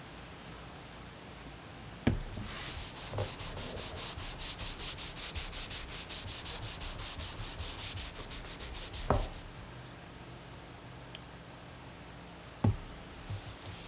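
Wood being sanded by hand: sandpaper rubbed back and forth in quick, even strokes for several seconds, with a few sharp knocks in between.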